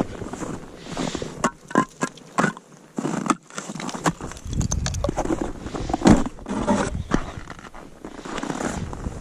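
Boots crunching on snow and ice in irregular steps, over gusts of wind on the microphone that drop away briefly near the start.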